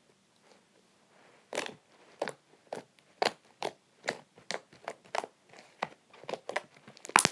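Fluffy slime being squeezed and stretched by hand, giving a run of short, sticky popping clicks, roughly two a second, as air pockets in the slime burst; the loudest pop comes near the end.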